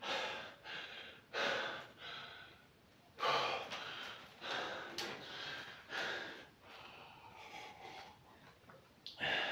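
A man breathing hard through nose and mouth, recovering from a weight-training set, with a rush of breath about every second. There is a single sharp click about five seconds in.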